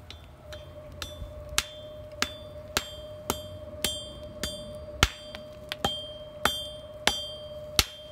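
Hand hammer striking hot square steel stock on an anvil, about two blows a second, each with a short metallic ring from the anvil. The bar is being folded over on itself ahead of a forge weld.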